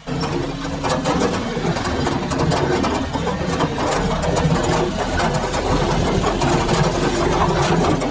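Yanmar B22 mini excavator's diesel engine running loud and steady, with scattered clanks and knocks from the machine at work, sped up to double speed. The sound comes in abruptly at full level.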